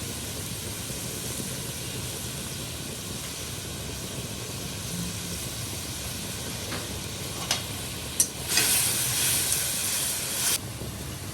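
Hotpot cooking on a stove: a steady low hiss, a few clicks of utensils against the pan, then a loud hiss for about two seconds near the end.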